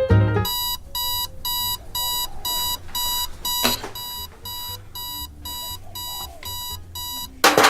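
Electronic alarm clock beeping, a steady tone pulsing about twice a second. There is a sharp knock about three and a half seconds in and a loud sudden noise near the end.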